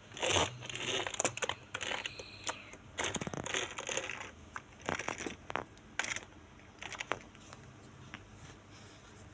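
Irregular clicks, taps and short rustles, as of small plastic or paper things being handled.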